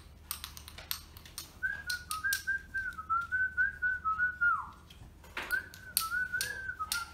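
A person whistling a tune in two phrases, the first ending in a downward slide, over repeated clicks and taps of cards and game pieces being handled.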